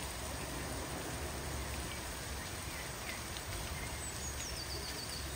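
Steady rushing hiss with a low rumble from BR Standard Class 4 tank locomotive 80136 standing at the water column while taking water, steam drifting off it. A small bird gives a short descending chirp near the end.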